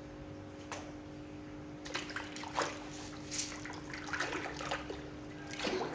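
Water splashing and sloshing in a tub as plastic toy animals are washed, in several irregular splashes over the second half, with a steady faint hum underneath.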